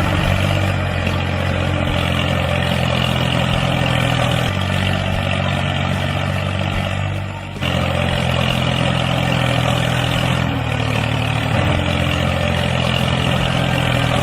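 Engine running steadily with a low hum, like a truck idling. It dips briefly and starts again about seven and a half seconds in.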